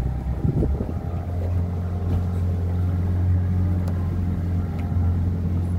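Small river boat's motor running steadily at cruising speed, a low even hum.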